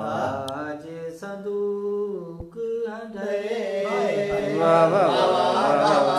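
A man singing Saraiki verse unaccompanied, in a slow melodic recitation with long held notes and wavering ornaments.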